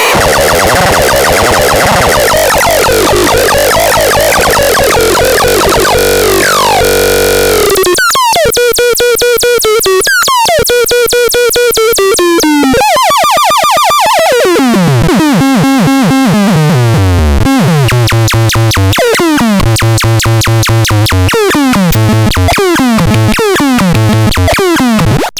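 Loud, buzzy synthesized electronic tones from the EDEX's sound generator. A harsh jumble of overlapping sounds gives way, about eight seconds in, to clean repeated beeps with quick falling pitch sweeps, then to stepping runs of descending notes. The sound cuts off abruptly at the end.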